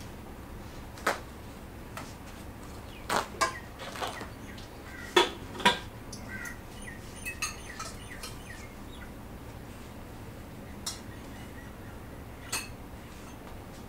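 Scattered clinks and knocks of dishes and cutlery in the background as a child gets food, loudest about five to six seconds in, over a steady low hum.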